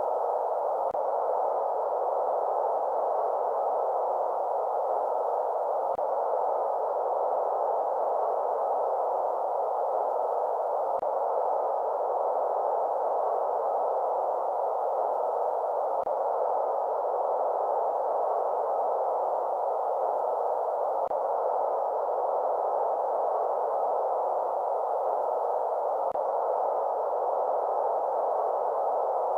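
Steady synthetic noise played for baby sleep: an even, muffled hiss held in the middle range, with little high or low, unchanging throughout. A faint tick recurs about every five seconds.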